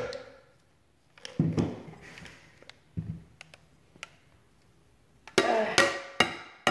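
Scattered hollow knocks and light taps of a plastic blender jar being handled and tipped against a glass bowl, with a few louder knocks near the end.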